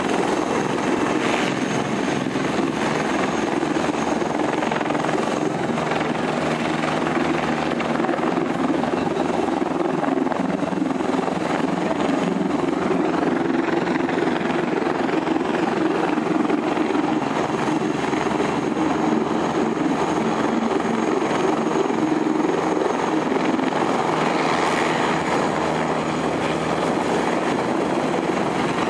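Eurocopter Tiger twin-engine attack helicopter flying low nearby, its four-blade rotor chopping steadily with a faint high whine, the sound holding at one level throughout.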